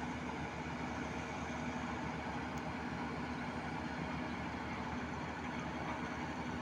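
A large mobile crane's diesel engine running steadily while it hoists a concrete bridge girder.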